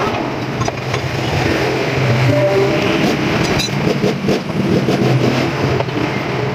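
Steady running noise of a motor vehicle engine, with a few light clicks.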